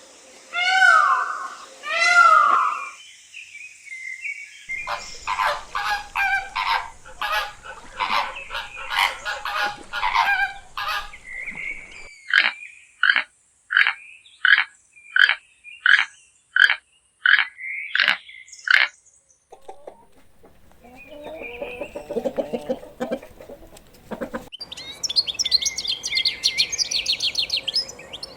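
Different farm animal calls one after another. Three drawn-out falling calls come at the start, then a long run of honking and calling from domestic fowl, with a regular string of short calls in the middle. High chirping comes near the end.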